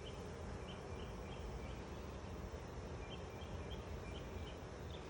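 Honeybees buzzing around open hives in a steady faint hum, with short high chirps repeating in small runs throughout.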